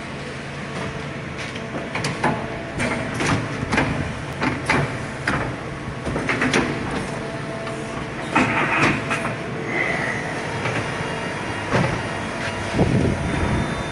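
Okuma MC-5VA vertical machining center running on a test run: a steady machine hum with several constant tones, broken by many irregular short knocks and clatters.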